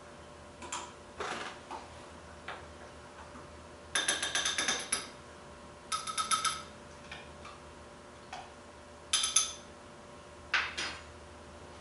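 Kitchen containers and utensils handled at a prep table: three quick runs of rapid, ringing clicks, each under a second long, about four, six and nine seconds in, with scattered single knocks between.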